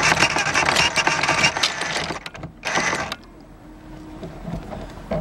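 Anchor chain rattling out over the bow roller as the anchor is paid out. It runs in one long clattering stretch that stops about two seconds in, then a short second burst follows.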